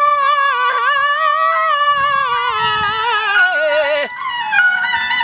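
Balochi folk music: a male singer holds one long wavering note that slides downward and breaks off about four seconds in, over bowed suroz fiddle and plucked dambura lute. After that the suroz carries a quicker, stepped melody.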